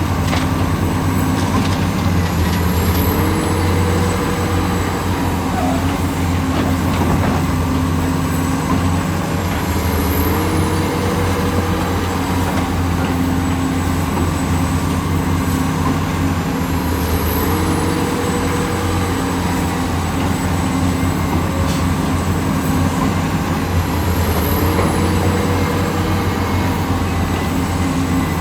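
Heavy diesel engine of a working excavator running steadily. A short rise in pitch, as the hydraulics take load, comes back about every seven seconds, four times.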